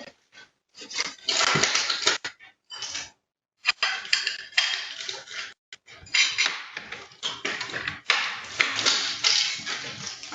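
Irregular clattering and rustling in uneven bursts with short gaps, like objects being handled and knocked about.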